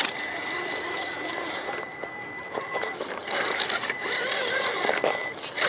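RC rock crawler's electric motor and gears working as it climbs a rock ledge: a steady high whine with ratcheting gear chatter, easing off briefly about two seconds in.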